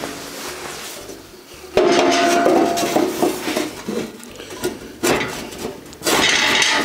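Sheet-steel hopper scraping and clanking against the steel stove body as it is fitted into place, with a loud ringing metallic clatter about two seconds in, another knock about five seconds in, and loud scraping near the end.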